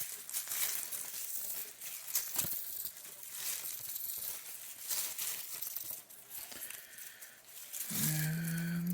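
Rustling and light clicking of an old typewriter ribbon being unwound by hand from its spool, with a short steady low hum near the end.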